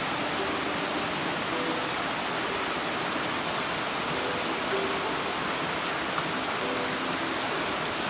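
Mountain stream rushing: a steady, even wash of flowing water with no break.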